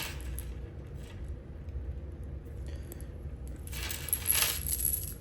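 Small plastic beads and rattle pieces of a catfish rig clicking and clinking as they are handled and threaded onto the line, with a brief scratchy rustle about four seconds in.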